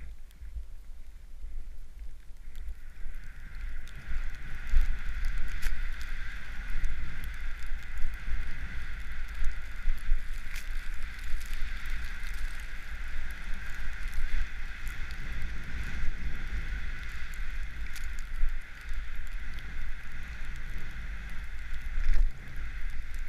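Wind rumbling on a helmet-mounted GoPro as a snowboard rides through deep powder snow, with a steady hiss that sets in about two and a half seconds in and frequent short knocks.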